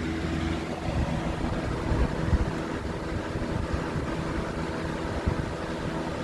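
Lakewood 200i 20-inch box fan fitted with a Lasco D-wing blade, running on high speed: a steady rush of air over a faint motor hum, with a few low thumps. It sounds much like a Lasco fan.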